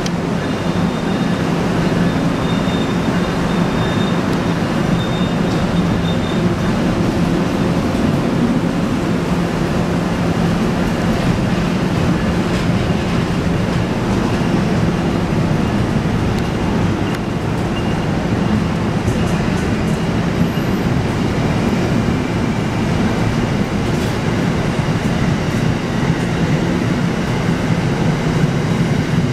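Amtrak passenger train departing and its stainless-steel cars rolling past: a steady rumble of wheels on rail, with a few faint clicks over the rail joints.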